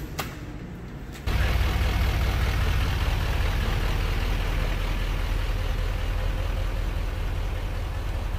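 Pickup truck engine running steadily as it slowly tows a boat trailer past. The low rumble starts suddenly about a second in.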